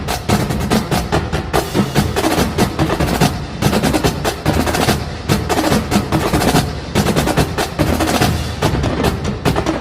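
Music driven by fast, dense percussion: rapid drum and wood-block-like strokes over a steady low bass.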